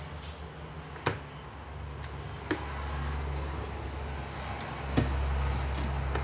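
A few light knocks and clicks as boiled corn cobs are lifted out of a metal bowl and set down on a plate, the loudest about five seconds in. A low steady rumble grows in from about three seconds in.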